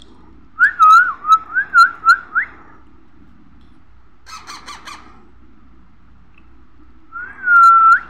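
Baby parrot squawking: a quick run of about seven loud, harsh calls in the first couple of seconds, four softer short calls around the middle, and one longer call near the end. These are the begging calls of a chick being spoon-fed.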